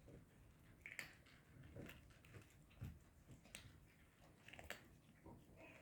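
Cats chewing food: faint, irregular small clicks and smacks.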